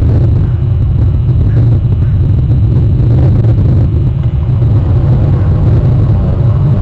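Wind buffeting an outdoor webcam microphone: a loud, steady low rumble.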